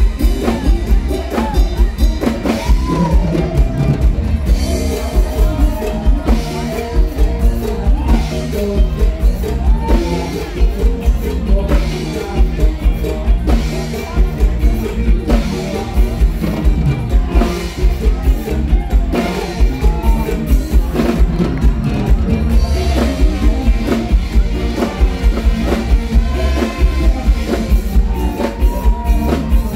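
A male singer singing over a live band, with a steady drum-kit beat, played loud through the stage sound system.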